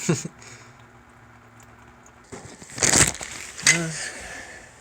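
A man's short wordless vocal sounds, heard twice about three seconds in, over rustling handling noise.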